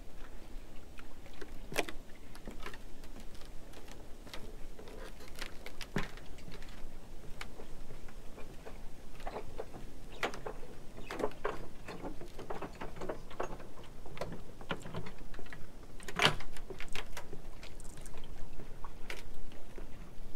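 Footsteps on the wooden planks of a jetty, a string of irregular knocks, the loudest about three quarters of the way through, over a steady low wind rumble on the microphone.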